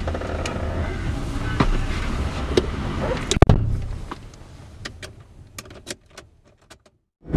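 A car door shutting with a single solid thump about three and a half seconds in, after a low steady rumble heard through the open door. After the shut it is much quieter, with a few light clicks inside the cabin.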